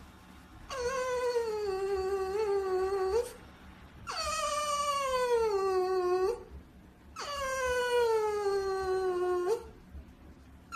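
French Bulldog howling in three long, drawn-out calls, each a couple of seconds long and falling a little in pitch toward its end, with short pauses between them.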